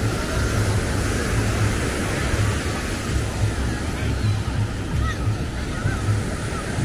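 Ocean surf washing onto a beach in a steady rush, with wind buffeting the microphone in low gusts.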